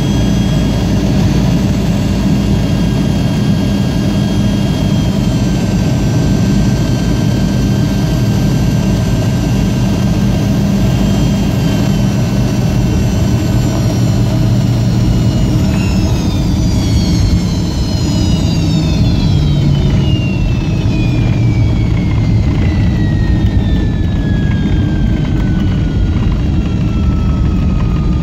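Yak-42D's Lotarev D-36 turbofan, heard loud from the cabin beside the engine: a steady roar with a low hum and a high whine. About halfway through, the whine starts falling steadily in pitch as the engine spools down and keeps falling to the end.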